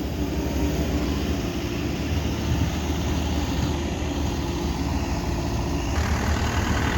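Heavy equipment engines running steadily with a low drone, the sound turning a little harsher about six seconds in.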